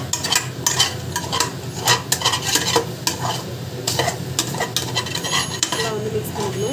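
A metal spoon stirring vegetables and masala in an aluminium pot, with repeated uneven scrapes and clinks against the pot, over a light frying sizzle.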